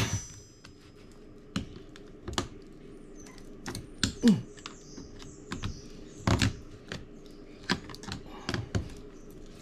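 Irregular metallic clicks, taps and scrapes of a screwdriver prying at the bolts in a cut-open fridge compressor, with a brief metallic ring at the start, over a low steady hum.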